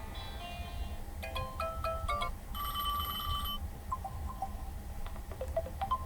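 Built-in ringtones of an Infinix HOT 11S phone playing. Short electronic melody notes are followed by a held chiming tone for about a second near the middle, then a few sparse single notes.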